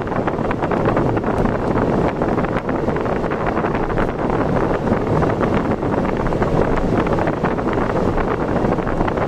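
Heavy wind buffeting on the microphone over the steady noise of a vehicle travelling at speed on the road.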